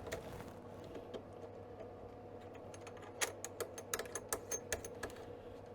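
Small sharp clicks and taps of hands handling an external speaker's lead and plug while connecting it to the radio, in a quick run about three to five seconds in, over a faint steady hum.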